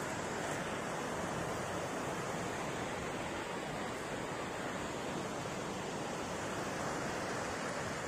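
Mountain stream and waterfall rushing over rocks: a steady, unbroken rush of water.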